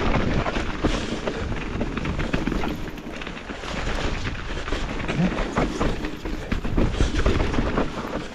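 Mountain bike descending a rough trail: tyres rolling over dirt and roots, with the bike rattling and knocking over the bumps.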